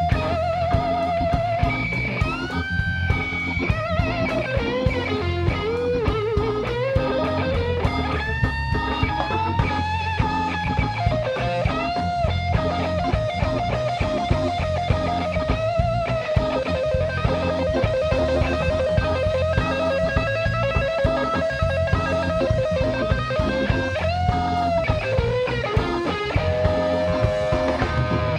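Organ trio playing an instrumental tune: an electric guitar takes the lead with bent notes and a long wavering held note near the middle, over organ and drums.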